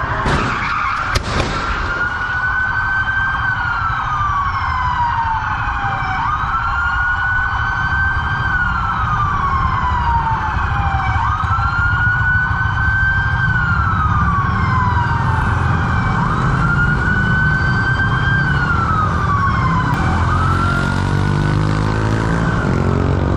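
Police patrol car siren in a slow wail, rising and then falling in pitch about every five seconds, over a steady low rumble of engine and traffic. There is one sharp knock about a second in.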